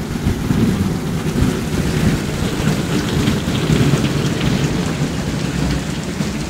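Fountain water spraying and splashing down close by: a steady, rain-like hiss over a strong low rumble.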